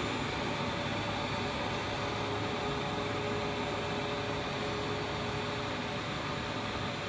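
Blown-film extrusion line running: a steady machine whir and hum with a few faint steady whines over it.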